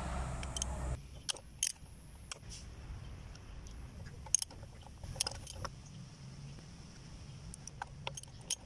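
Socket ratchet wrench loosening the connecting-rod cap bolts in a pressure washer pump's open crankcase: scattered metallic clicks and taps, the sharpest about four seconds in.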